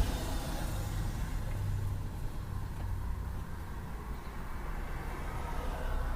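Steady low hum of a vehicle idling, heard from inside its cabin.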